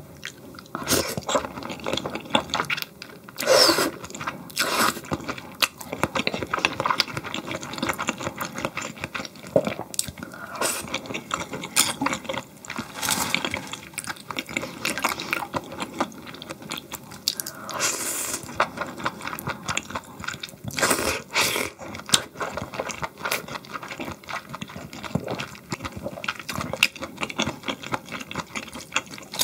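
Close-miked eating sounds: a person chewing, with many small wet clicks and smacks and a few louder rushes of sound about 3 to 5 seconds in and again around 13, 18 and 21 seconds.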